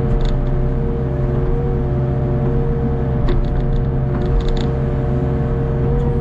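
Hitachi ZX48U mini excavator's diesel engine and hydraulics running steadily as the arm and bucket dig a trench through wet mud, with a few short clanks about three seconds in and again around four and a half seconds.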